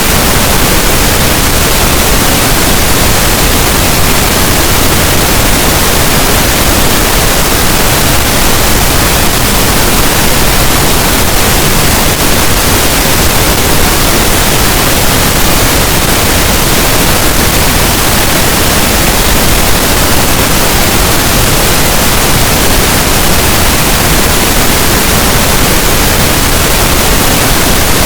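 Steady pink noise: an even, loud hiss spread across all pitches, with no changes or events.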